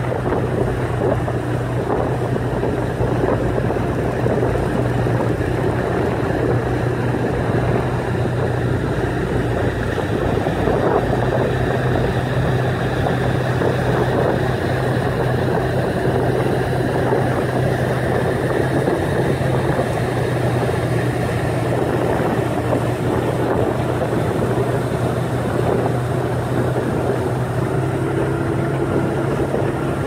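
A boat engine drones steadily while under way, over water rushing and churning in a ship's wake.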